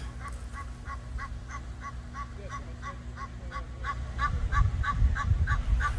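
Egyptian goose on a rooftop calling without pause, a rapid run of harsh honks about five a second. This is the racket of a goose nesting on a house roof. Low rumble joins in about two-thirds of the way through.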